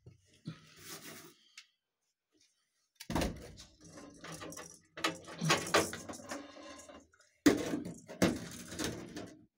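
Handheld power tool sanding the rusty steel floor of a stripped car interior, run in two bursts: one of about four seconds starting about three seconds in, and a shorter one of about two seconds near the end. A few soft handling knocks come before it.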